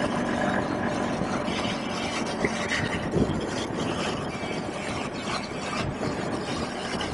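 BMW R1200GS Adventure motorcycle on the move: its flat-twin engine running steadily under even road and riding noise.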